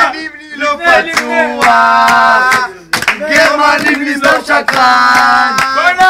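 A man singing, holding two long notes and breaking into shorter melodic phrases, over sharp percussive hits.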